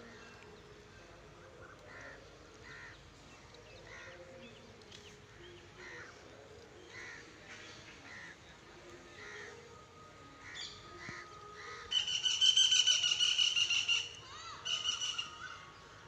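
Animal calls: short faint calls come and go, then about twelve seconds in a loud, high, wavering call lasts about two seconds, followed by a shorter one a second later.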